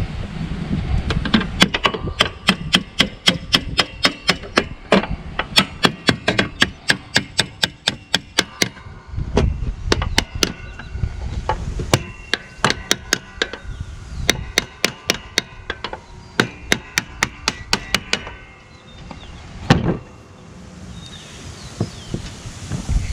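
Hammer striking metal in steady blows, about three a second, each with a short metallic ring, in two long runs separated by a brief pause, then one last blow.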